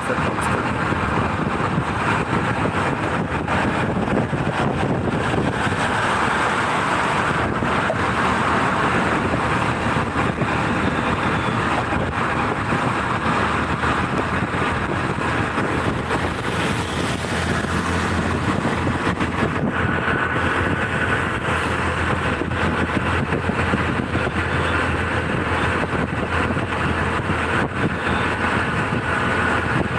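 Steady road noise and wind rush from a moving vehicle travelling at an even speed, heard from inside the vehicle.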